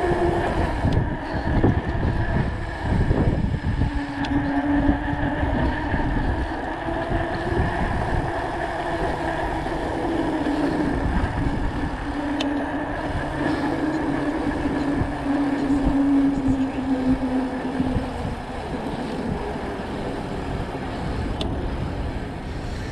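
Wind rumbling on the microphone of a moving e-bike, with a humming whine that wavers up and down in pitch from about four seconds in until near the end.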